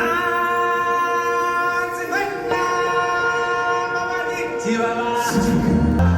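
Singers chanting long held notes over a sustained drone, with a fresh note taken up about two seconds in and a deep low sound coming in near the end.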